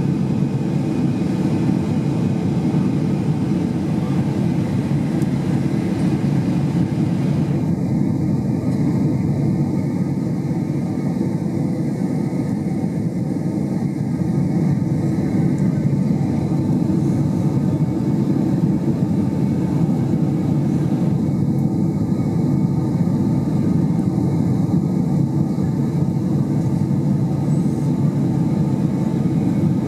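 Boeing 767-300ER cabin noise in flight: a steady low roar of the engines and the airflow, heard from inside the passenger cabin beside the wing.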